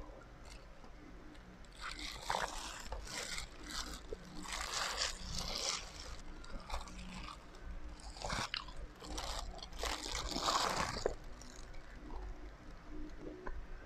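A person chewing and crunching food close to the microphone, in irregular bursts.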